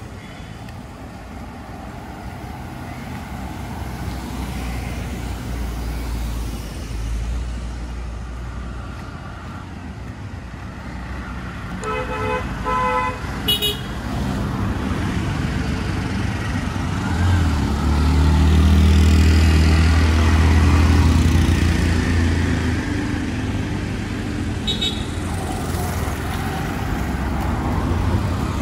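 Road traffic outside the cemetery walls: vehicle engines passing steadily, with a few short car horn toots near the middle and another brief toot near the end. A heavy vehicle's low engine rumble swells and is loudest about two-thirds of the way in.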